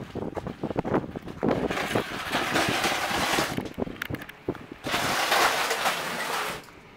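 Knocks and clunks of a metal weather-instrument pod being handled and pushed into a pickup truck bed, with two longer rushes of noise, the first about two seconds in and the second about five seconds in.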